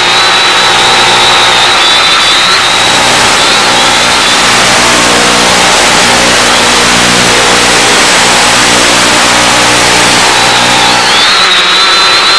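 Loud hiss and buzz of radio static on the quadcopter's FPV video-downlink audio channel, harsher through the middle while the picture breaks up. A wavering high whine sits over it near the start and again near the end.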